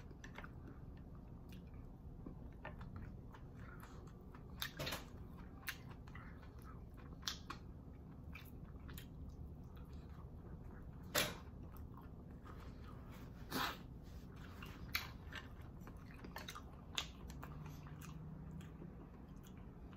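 A person chewing food close to the microphone, with irregular sharp clicks from the mouth. The loudest clicks come about 11 seconds in and again about two seconds later.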